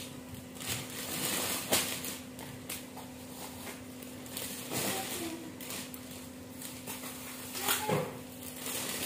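Plastic goodie bags and foil snack packets crinkling and rustling in irregular bursts as they are handled and packed, over a steady low hum.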